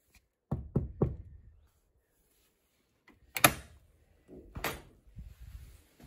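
Three quick knuckle knocks on a green-painted wooden plank door, then two louder clanks and some rattling as the door is opened.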